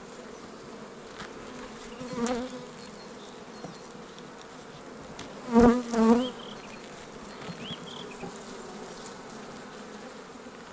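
Honeybees buzzing steadily over an open hive. A wavering buzz swells loudly twice, briefly about two seconds in and more strongly around six seconds in, with a short bump at the louder swell.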